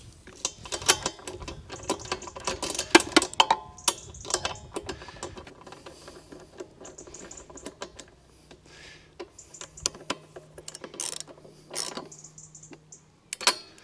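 Small metallic clicks and clinks of a plug socket and wrench as a spark plug is screwed back into a lawn mower engine and tightened, busiest over the first few seconds and then more scattered.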